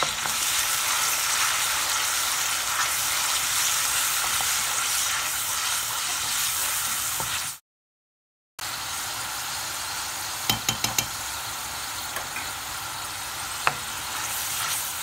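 Chopped onion sizzling steadily as it fries in oil in an aluminium saucepan, stirred with a wooden spoon. The sizzle cuts out for about a second just past the middle. Later come a few quick knocks of the spoon against the pan, and one more near the end.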